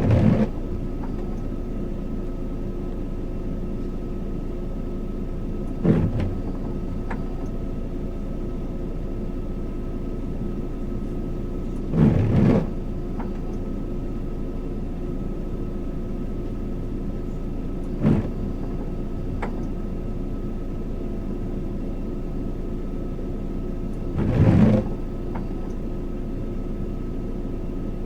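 An engine idling steadily, with a brief swishing sweep about every six seconds.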